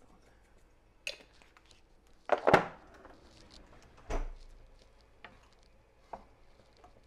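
Kitchen clatter at the stove: a wooden spoon stirring sauce in a frying pan, with a few sharp knocks of spoon, pan and spice jar. The loudest is a double knock about two and a half seconds in.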